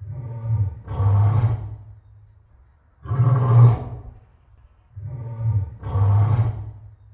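Lion roaring: five deep roars, each under a second long, coming about a second or two apart.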